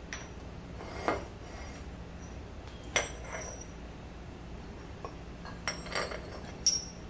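Small metal lathe-spindle parts clinking and knocking together as they are handled and set down during disassembly, with several separate sharp clinks; the loudest come about three seconds in and near the end.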